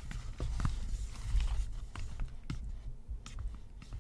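Wooden chopsticks stirring cheese powder into sticky instant tteokbokki rice cakes in a paper cup, with irregular soft clicks and taps as the sticks knock against the cup.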